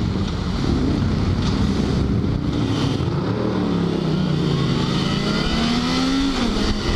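Motorcycle engine accelerating under load through the gears, with wind rushing over the helmet-mounted microphone. The engine note climbs for about two seconds in the second half, then drops near the end as it shifts up.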